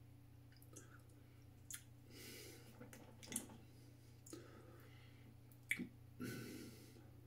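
Faint mouth sounds of someone savouring a mouthful of beer: a few soft smacks and clicks of the lips and tongue, and two breaths out, over a low steady room hum.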